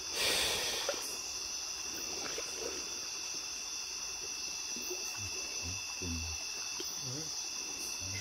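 Night insects chirring steadily in several high, unbroken tones, with a brief splash of water in the first second.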